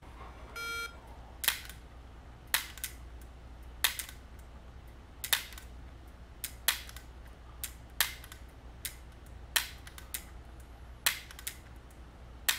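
A short electronic start beep, then nine sharp dry-fire clicks from a Sig Sauer P226 .177 air pistol, one every second and a half or so, most followed by a fainter second click.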